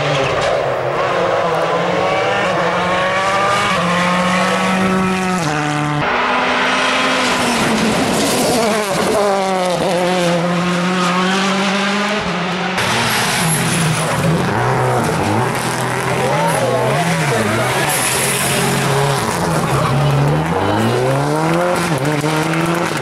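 Rally car engines at full throttle, revs climbing and dropping sharply with quick gear changes and lifts through the corners. The sound jumps abruptly twice as it passes from one car to the next.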